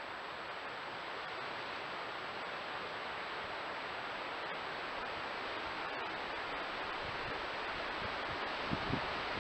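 Steady hiss of a trail camera's microphone and electronics, with a thin high whine. Near the end a few low buffets of wind on the microphone begin.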